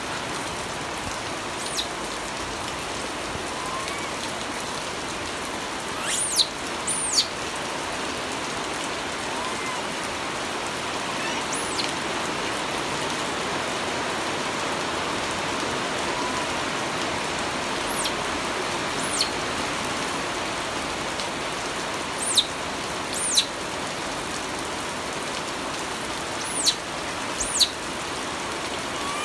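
Steady rain falling, a constant even hiss. About a dozen short, high chirps, each falling in pitch, come and go above it, some in quick pairs.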